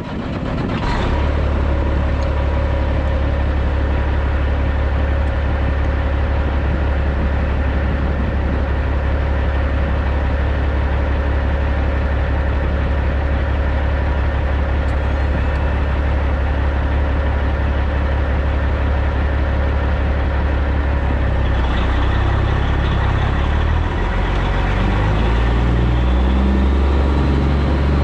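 The Caterpillar C15 diesel in a Peterbilt 379 semi truck idling steadily with a deep, even rumble. About 21 seconds in, the engine note shifts and rises slightly as it takes on light load and the truck starts to roll.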